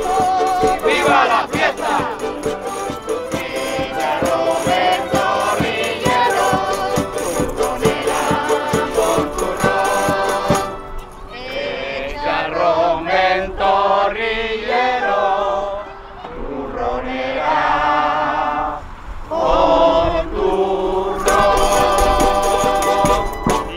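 A group of voices singing with music, with dense, quick rhythmic percussion over roughly the first ten seconds; after that the singing carries on with less percussion.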